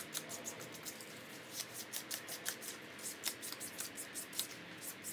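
Small piece of sandpaper rubbed by hand over a latex drysuit neck seal in quick back-and-forth strokes, several a second, roughening the glossy surface of the latex so the adhesive will bond.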